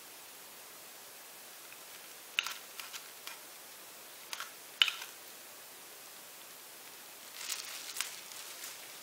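Thin plastic cups clicking and tapping lightly as they are handled while paint is poured from one into the other: a couple of clicks about two and a half seconds in, two more around five seconds, then soft crinkling of the plastic near the end, over a faint hiss.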